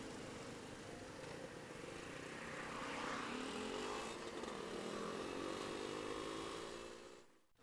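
Tuned Suzuki Satria 120R two-stroke single running under way with wind rush, its pitch rising about two and a half seconds in and then holding steady. The sound cuts off suddenly near the end.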